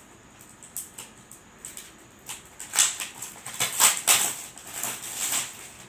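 Packaging being handled: a series of rustling, crinkling scrapes, sparse at first and then louder and closer together from about halfway through.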